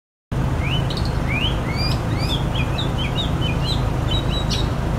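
Small birds chirping, a quick run of short rising chirps, over a steady low hum and a haze of outdoor noise. It all starts abruptly under a second in.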